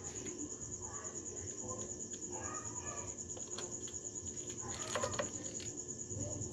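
A steady, rapidly pulsing high-pitched insect trill, like a cricket's, runs throughout. About five seconds in come a few small clicks as metal parts of a spinning fishing reel are handled with a small tool.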